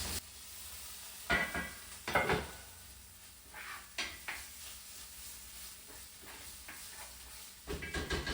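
Cooking sounds: a utensil knocking and scraping against a pot a few times, with a cluster of knocks near the end, over a faint steady sizzle.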